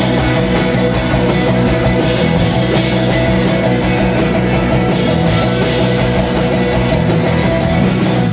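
Live rock band at full volume: electric guitars, bass and drums playing a loud, driving passage that stops abruptly on a final hit at the end.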